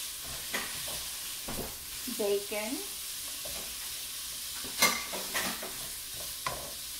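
Chopped bacon sizzling steadily as it begins to brown in a nonstick frying pan. A wooden spatula stirs it, with several sharp scrapes and taps against the pan; the loudest comes about five seconds in.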